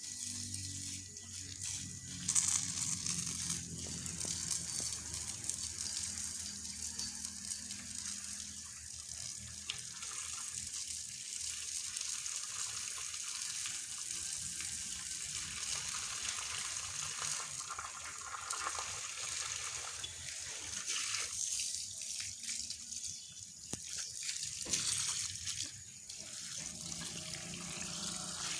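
Water running and splashing steadily, with louder spells now and then.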